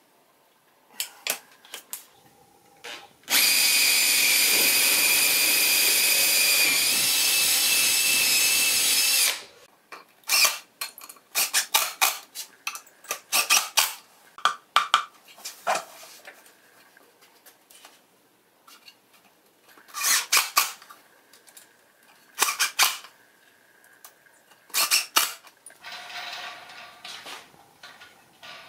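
A power drill runs steadily for about six seconds, its pitch stepping slightly lower partway through as it takes load. It is followed by scattered short knocks and clicks of wooden parts and hardware being handled.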